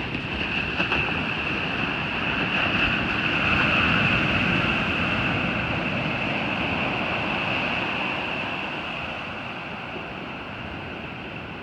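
Ocean surf on a beach: a wave breaking and washing in, the rush building to a peak about four seconds in and then slowly fading.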